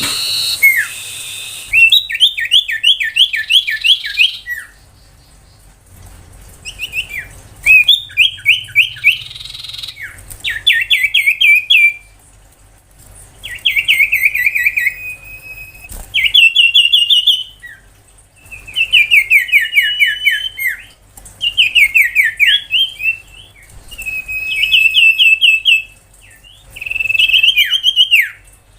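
Common iora singing its rapid 'tembakan' phrases: bursts of quick, sharp, downward-sliding notes, each burst about two seconds long, repeated about ten times with short pauses between.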